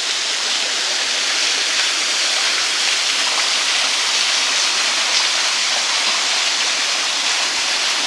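Small waterfall running down a rock face into a forest stream: a steady, even rush of falling and splashing water.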